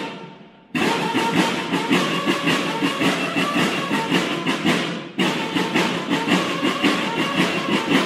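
Military-style drum and bugle band (banda de guerra) playing: snare drums beat a fast, steady rhythm under held bugle notes. The playing starts again under a second in, breaks off briefly about five seconds in, and stops near the end, the last stroke ringing away.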